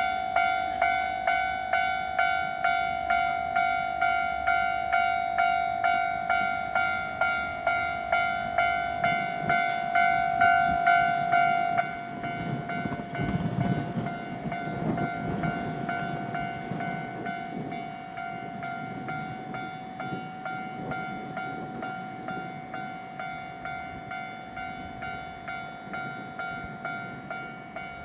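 Japanese railroad crossing warning bell ringing, a steady repeated ding. About twelve seconds in the bell drops in level and a train rumbles past for several seconds while the bell keeps ringing.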